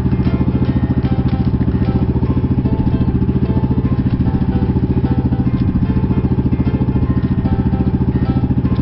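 Pump boat's engine running steadily under way, a loud, fast, even beat with no change in speed.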